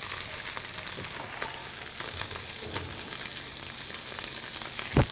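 Hapuku fillets frying skin side down in a hot pan: a steady sizzle with scattered small crackles. A short low thump comes just before the end.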